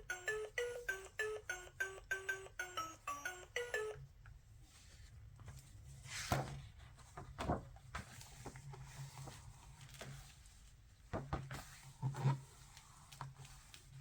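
A children's sound book's electronic sound chip plays a quick beeping jingle of single notes, about four a second, for about four seconds. After that there are a few soft knocks.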